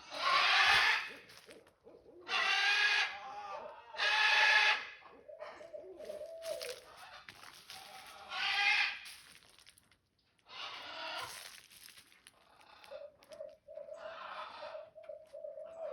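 Barred owl calling: about six loud, harsh hooting calls, the first three the loudest, with quieter, steadier wavering hoots between them.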